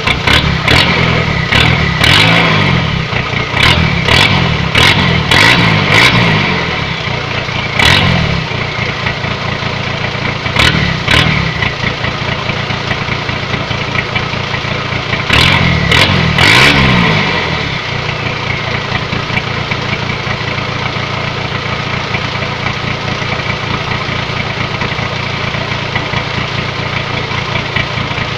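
Isuzu TFR pickup's exhaust, its pipe ending just ahead of the rear axle. The engine is blipped up and down in a string of short revs for about the first seventeen seconds, then settles to a steady idle.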